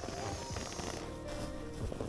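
Background music with short held notes.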